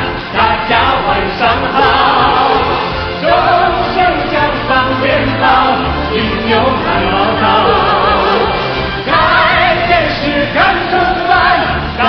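Mandarin pop song sung live by male and female singers taking turns, over a full backing track.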